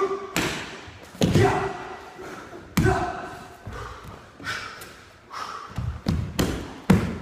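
Sharp slaps and stamps from a barefoot martial artist performing a kenpo kata on a wooden floor, about eight in all, several coming close together near the end. Each has a short echo from the large hall.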